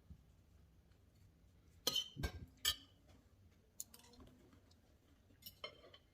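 Cutlery clinking against dishes during eating: a few light, separate clinks about two seconds in and near the end, with one duller knock among them.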